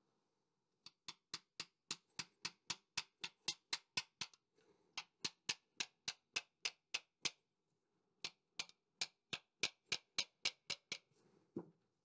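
Light, rapid hammer taps, about four or five a second, in three runs with short pauses, then one duller knock near the end. The strikes land on an upturned ball-peen hammer whose wooden handle drives the hydraulic piston into the David Brown 990's ram cylinder bore, a tight fit.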